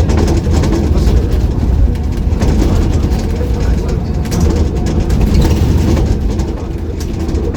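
Ride on a double-decker sightseeing bus: a steady low rumble of the bus's engine and the street traffic, with some faint voices in the background.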